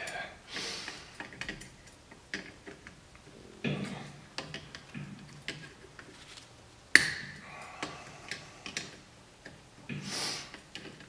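Needle-nose pliers working the cotter pin on an ATV's rear axle nut: scattered small metallic clicks and ticks with some glove rustle, and one sharp click about seven seconds in.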